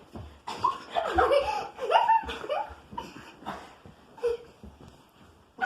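People laughing hard in a string of short bursts, dying down near the end.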